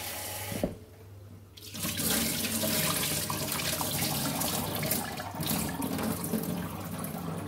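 Water running from a tap into a sink while raw cow kidney is washed. It cuts off with a click about a second in, then runs again, louder, after about a second.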